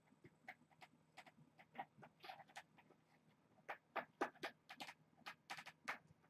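Faint, irregular light taps and clicks of kittens at play, paws and claws striking the carpeted cat tree and toys. The taps come thicker and a little louder in the second half.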